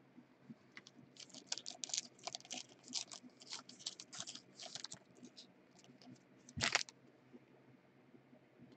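Foil trading-card pack wrapper and cards handled by hand: a run of light, quick crinkles and ticks, then one louder crumple about two-thirds through.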